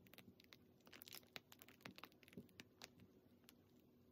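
Very faint crinkling and ticking of a plastic piping bag being squeezed as whipped cream is piped, over near-silent room tone.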